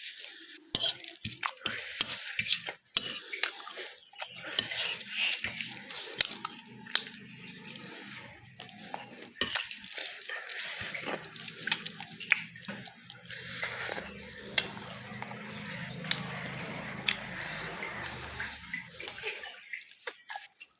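Metal cutlery clinking and scraping against a dish, in many short sharp knocks, as food is mixed and eaten. A low steady hum runs under it from about four seconds in until shortly before the end.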